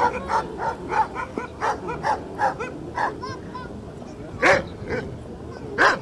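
Puppies yipping in play-fighting: a quick run of short, high yips, about three a second, then two louder barks, one just past the middle and one near the end.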